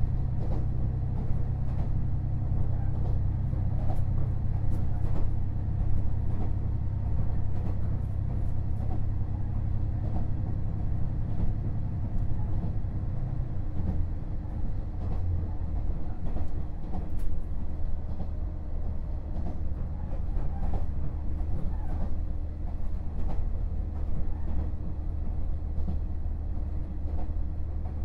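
Running sound inside a KiHa 48 diesel railcar under way: the diesel engine's steady drone under the floor, with scattered clicks from the wheels on the track. About halfway through, the engine note drops to a lower pitch.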